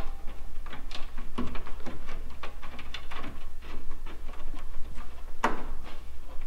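Small clicks and taps of a metal bolt against the radiator's plastic mounting rail and bracket as it is fitted by hand, with one sharper click about five and a half seconds in, over a low steady hum.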